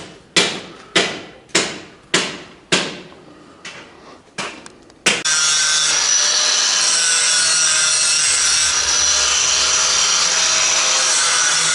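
A run of hammer blows on metal, about two a second, each ringing briefly. About five seconds in, an angle grinder starts and runs steadily, grinding steel with a constant whine.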